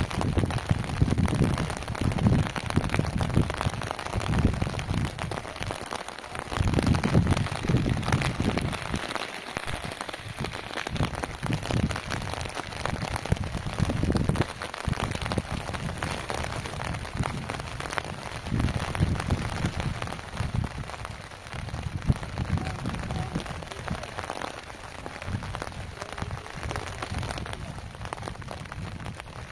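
Steady rain falling, with gusts of wind rumbling on the microphone every few seconds.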